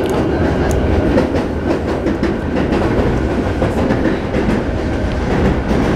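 Sotetsu 12000 series electric train running, heard inside the passenger car: a steady loud rumble of wheels on the rails with scattered clicks over rail joints, and a faint steady whine from its Mitsubishi IGBT-VVVF inverter drive.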